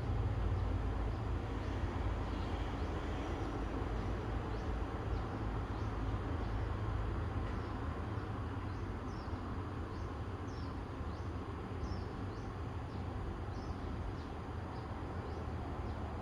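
Low rumble of a passing vehicle, fading away over the first half, under a steady outdoor hiss. From about seven seconds in, a small bird calls with short, high, falling chirps, one or two a second.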